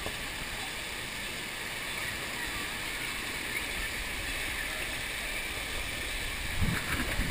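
Water rushing down a plastic water slide around a rider sliding through its curves: a steady rushing hiss, with a few low thumps near the end.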